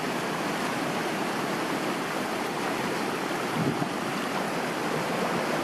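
Steady rush of running water from a small stream of waterfall run-off flowing over rocks.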